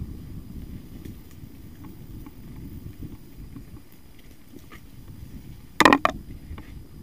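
Mountain bike rolling fast down a dirt forest trail: a steady low rumble of tyres and air on the bike-mounted microphone, with scattered faint rattling clicks. About six seconds in comes a short loud burst, the loudest sound, followed by a smaller one.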